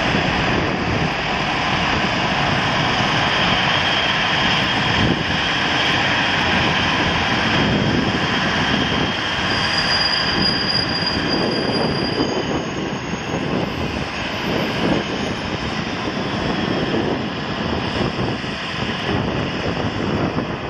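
Boeing 737-800's twin CFM56-7B turbofan engines at takeoff climb power as the jet climbs away: a steady, rough jet roar with a faint high whine, easing slightly in loudness over the second half.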